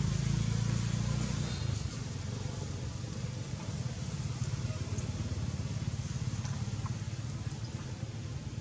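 A motor vehicle engine running: a low hum that is strongest in the first second or so, then eases to a steady low rumble.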